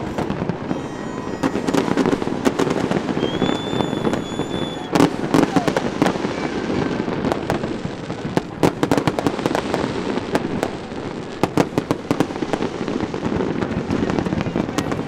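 Fireworks going off in rapid, irregular bangs and crackles, with a high steady whistle held for a second or two a few seconds in.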